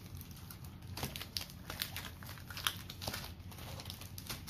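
Foil booster-pack wrappers crinkling as the packs are handled and gathered up: a run of irregular crackles and rustles.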